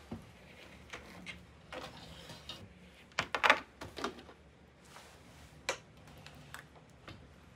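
Scattered clicks and knocks of a small flat-screen TV being handled and fitted onto a black articulating wall-mount arm, plastic and metal tapping together, with the loudest cluster of clacks about three and a half seconds in.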